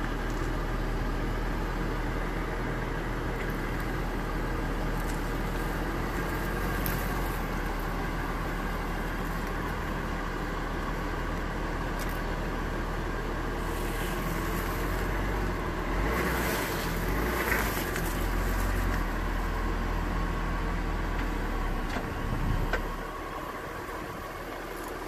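Jeep Grand Cherokee engine running steadily at low speed. It gets louder for a few seconds about two-thirds of the way through, then drops in level near the end.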